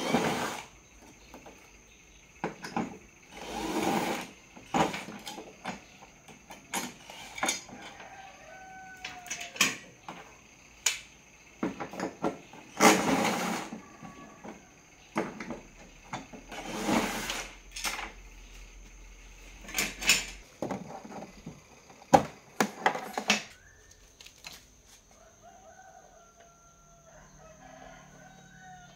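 A rooster crowing several times, each crow about a second long, mixed with sharp clicks and knocks.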